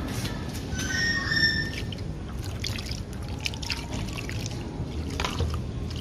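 Coconut milk poured from a plastic jug into a plastic basin of marinated fish pieces, trickling and splashing as a hand mixes it through the fish, over a steady low background rumble.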